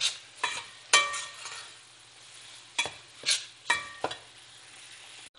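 Slotted metal spoon scraping and stirring semolina toasting in hot oil in a stainless steel pot, sharp metallic scrapes in two short runs about half a second apart, over a faint sizzle.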